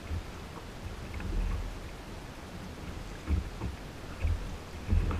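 Water lapping and splashing against the hull of a Hobie Outback kayak as it is towed along by a hooked fish, with irregular low thumps of wind buffeting the microphone.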